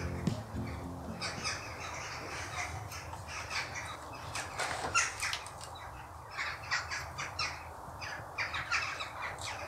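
Crows cawing: many short, harsh calls in quick runs.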